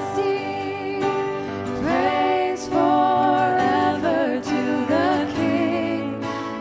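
A contemporary Christian worship song: a sung melody over acoustic guitar accompaniment.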